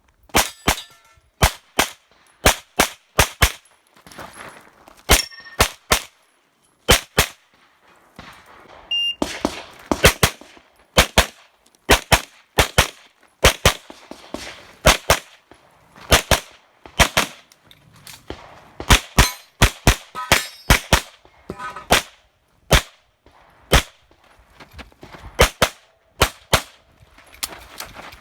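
Rapid pistol fire during a practical shooting stage run: shots mostly in fast pairs, string after string, with short breaks between strings.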